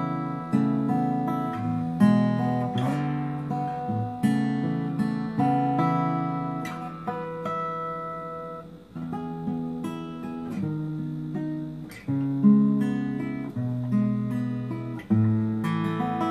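Protégé SA-3C acoustic guitar being played: a run of chords struck one after another, each ringing on and fading before the next.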